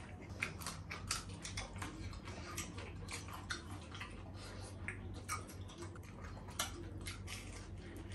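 Quiet, close-miked chewing and mouth sounds of people eating breaded fried chicken with their fingers: irregular wet clicks and smacks, a few each second.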